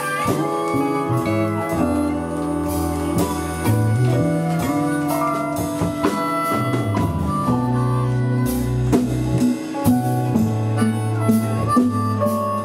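Live blues band playing an instrumental passage: electric guitar over a moving low line, with a drum kit keeping a steady beat.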